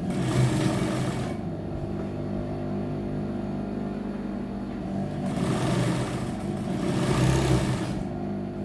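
Electric sewing machine stitching a side seam, running in two louder spells, over about the first second and a half and again from about five to eight seconds in, over a steady hum.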